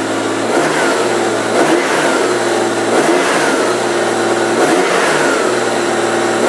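A 1994 Honda Gold Wing GL1500's carbureted flat-six engine idling, blipped with the throttle about four times, each rev rising and falling back to idle.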